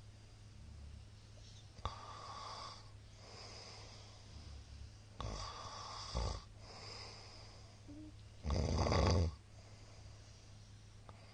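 A middle-aged man snoring in his sleep: several softer, uneven snoring breaths, then one loud snore near the end.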